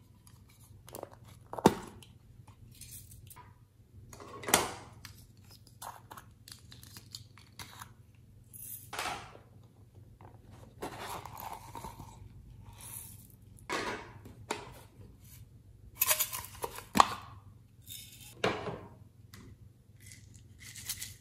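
Small plastic and tin containers being handled and opened, their lids and catches clicking and snapping, with scraping and rustling in between.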